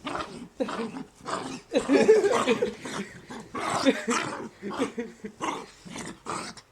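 Dog growling and giving short barks while being teased, a rapid irregular string of vocal bursts that is loudest about two seconds in.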